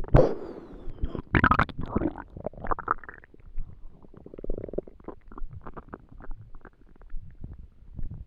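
Empty human stomach growling and gurgling, recorded close up. A loud run of gurgles fills the first three seconds, a short buzzy growl follows about four seconds in, and then come smaller scattered pops and gurgles.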